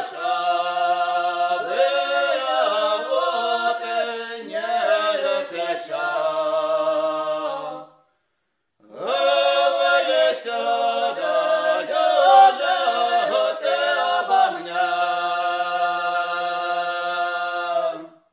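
A cappella choir singing a slow song in long held chords. It breaks off for about a second midway, then resumes.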